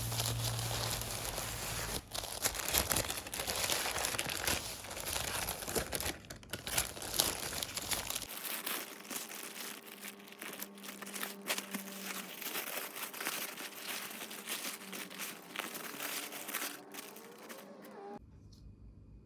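Crinkling, rustling noise with many small irregular clicks. A low hum drops out abruptly about eight seconds in.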